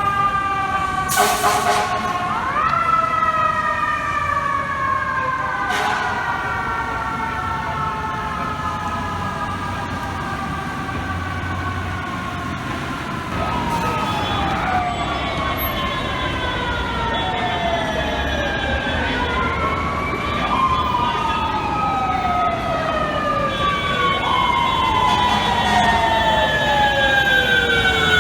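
Fire truck sirens wailing in the street, several at once, each winding up and then slowly winding down, over and over and overlapping. A short burst of noise comes about a second in.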